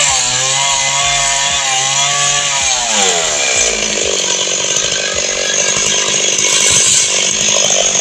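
Two-stroke chainsaw running at high revs, its pitch wavering, then dropping about three seconds in as it labours through wood with a rougher, noisier sound.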